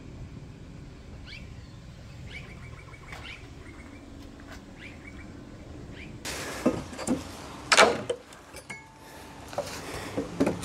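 Birds chirping in short rising calls for about the first six seconds. Then a pallet buster levering boards off an old wooden pallet: a run of sharp wood cracks and knocks, the loudest about eight seconds in.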